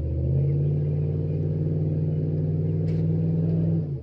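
A motor vehicle's engine revving up about half a second in and holding at steady high revs, then the sound cuts off abruptly just before the end.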